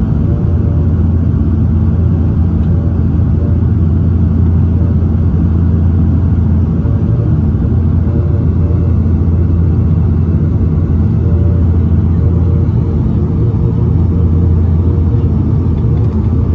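Cabin drone of a Dash 8-400's Pratt & Whitney PW150A turboprop engines and six-blade propellers on final approach: a loud, steady low hum with a constant propeller tone.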